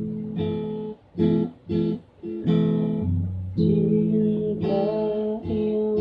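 Acoustic guitar strummed in chords. About one to two seconds in, a few short strums are cut off quickly before steady strumming resumes.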